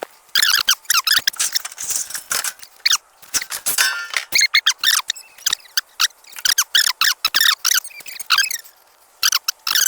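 Rapid high-pitched squeaks and chirps, many short sliding notes in quick, irregular runs, with a brief lull near the end.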